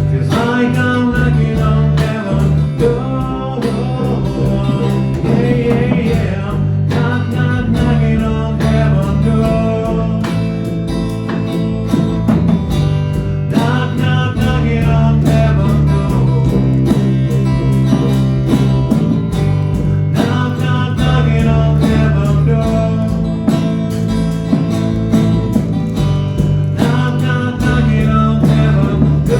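Music: a song with guitar and a singing voice over a steady bass line.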